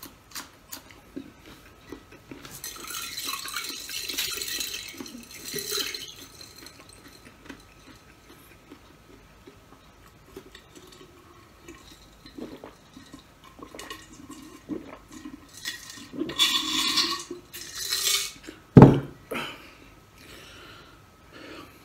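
Eating and drinking noises: sipping and swallowing from a heavy glass beer stein, with small clicks and two longer noisy stretches, then one sharp knock near the end, the loudest sound, like the glass mug set down on the table.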